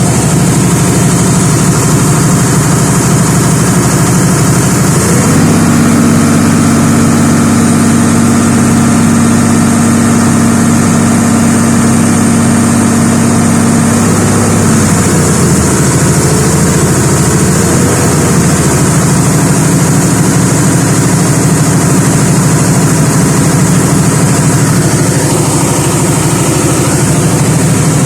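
Komatsu D275AX bulldozer's diesel engine running. It steps up in speed about five seconds in, holds there for about ten seconds, then falls back to a steady lower speed. The engine has a damaged head gasket that, in the owner's account, is letting combustion gases into the cooling system and making the radiator bubble.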